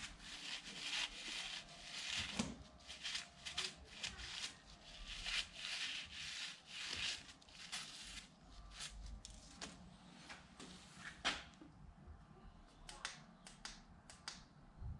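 Repeated short rubbing or scraping strokes by hand, close together through the first half and sparser later, with a louder knock about two and a half seconds in.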